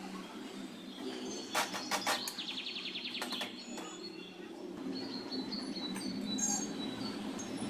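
Small birds chirping, with a rapid trill about two and a half seconds in, over a steady low background hiss; a few sharp clicks come about a second and a half in.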